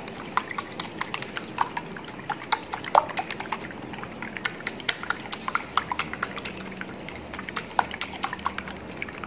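Small wire whisk beating raw eggs by hand in a glass bowl, its tines clicking quickly and irregularly against the glass, several clicks a second. The eggs are being beaten to a foam.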